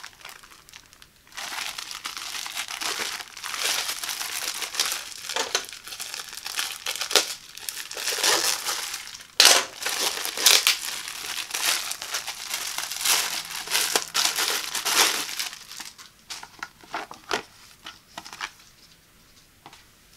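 Clear plastic packaging crinkling and rustling as it is handled and peeled off a folded mesh rug pad. The crinkling is dense and continuous, with a sharp loud crackle about nine and a half seconds in, then thins out about 16 s in to a few scattered rustles.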